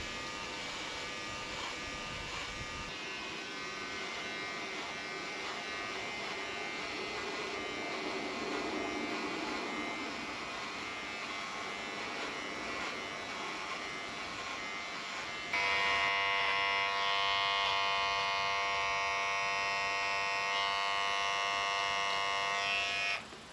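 Electric shaver buzzing steadily, with a slight wavering in pitch as it moves. It gets noticeably louder about two-thirds of the way through, then is switched off near the end.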